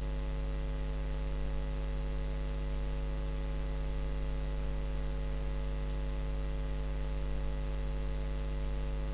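Steady electrical mains hum with a row of evenly spaced overtones, picked up in the recording's audio chain.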